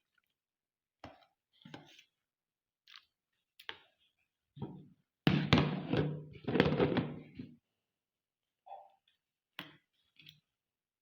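Light knocks and clicks of dishes and a serving spoon as a meal is dished up. About five seconds in there is a louder stretch of roughly two seconds.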